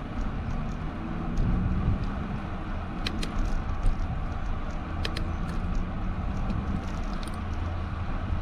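Steady road rumble and wind noise on a moving bicycle, with a few sharp clicks or rattles around three and five seconds in.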